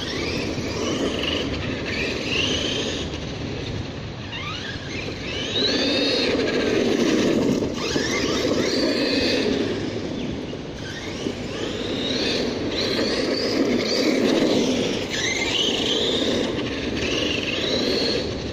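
Redcat Terremoto V2 RC monster truck's Turnigy XK-4074 2000KV brushless motor and drivetrain whining, rising in pitch again and again as the throttle is punched, over a steady rumble of its tyres rolling on brick paving.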